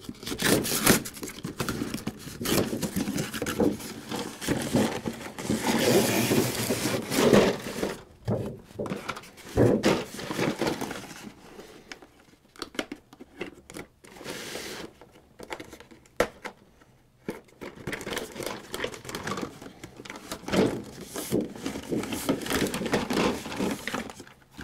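A cardboard toy box being opened and its packaging handled: tearing and rustling cardboard, irregular and stop-start, with a few brief lulls.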